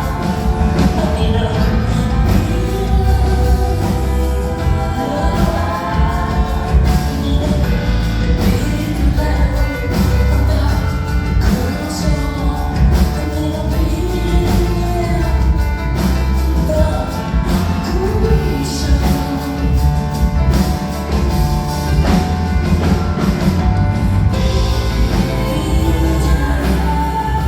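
A live concert performance with a female singer's voice over the music and a strong, steady bass.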